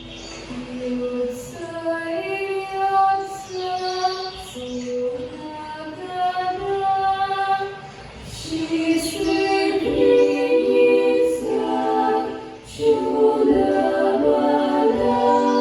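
Vocal ensemble singing a song in harmony. The sound fills out about ten seconds in, with more voices on different notes at once.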